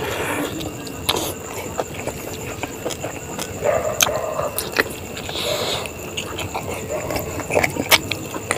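A person eating chicken leg: chewing with wet lip smacks and short mouth clicks, scattered irregularly.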